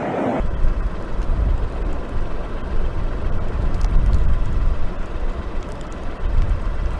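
Cumbre Vieja volcano erupting: a continuous deep rumbling roar from the lava-fountaining vent, with a few faint crackles.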